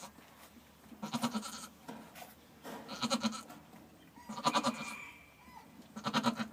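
Goat bleating in short, low calls, four of them about a second and a half apart.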